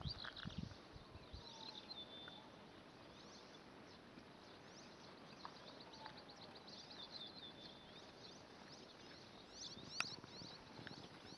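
Faint chirping of small birds: many short, quick high chirps repeating through the quiet, with one sharp click about ten seconds in.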